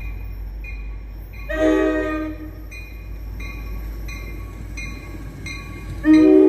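Railroad crossing bell dinging about one and a half times a second, over a low rumble from an approaching New Jersey Transit train. The train's horn sounds a blast of about a second, then a louder long blast starts near the end.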